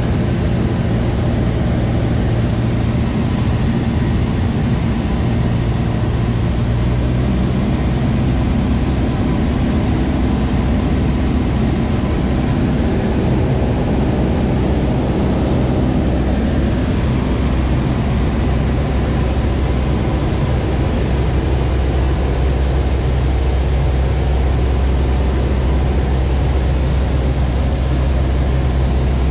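Cabin noise of a high-wing light airplane in flight: the engine and propeller make a steady, loud low drone over a hiss of rushing air. The drone's tone shifts slightly about halfway through.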